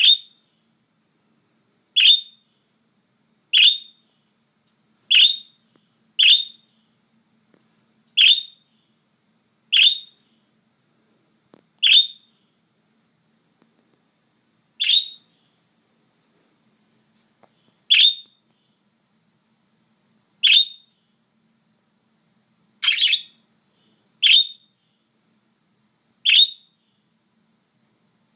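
Budgerigar chirping really loudly: about fourteen short, sharp, high single calls, one every one and a half to three seconds.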